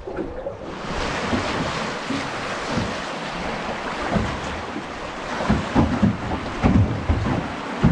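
Fast river water rushing and splashing past the bow of an aluminum drift boat, a steady hiss that comes up about a second in, with low bumps now and then in the second half.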